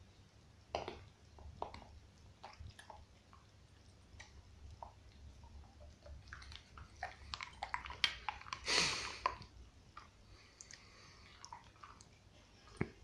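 A dog gnawing on a bone: scattered, irregular clicks of teeth on the bone, with one louder, longer noise a little before nine seconds in.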